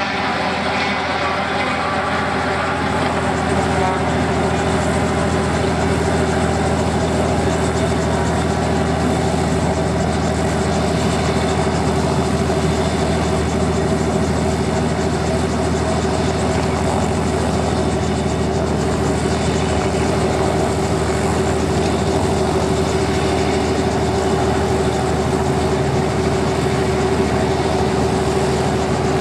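Robinson R44 Raven helicopter running at ground idle on the pad with its main rotor turning: a steady engine and rotor hum that grows slightly louder about three seconds in.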